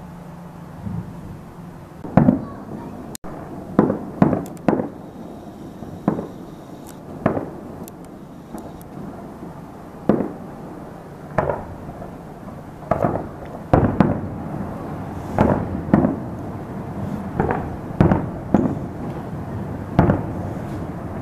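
Distant aerial fireworks shells bursting in an irregular string of bangs, roughly one a second from about two seconds in, each trailing into an echo.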